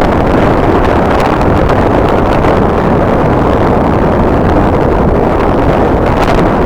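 Strong wind buffeting the microphone: a loud, steady rushing rumble with no breaks.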